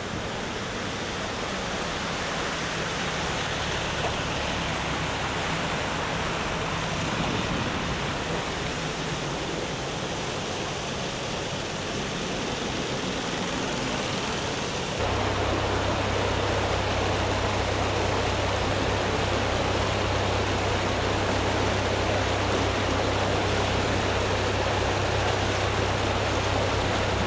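Steady rushing noise like fast-flowing floodwater. About halfway through, the sound shifts abruptly and a steady low hum joins it.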